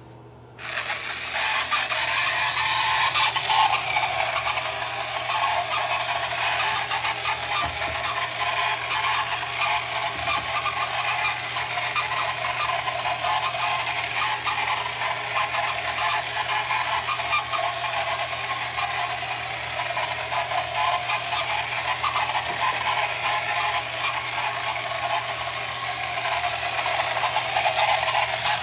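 1968 Ideal Motorific toy outboard motor, a small battery-powered electric motor and gearbox, switched on about half a second in and then running steadily with a dense buzzing rattle as it drives the toy boat through bathtub water.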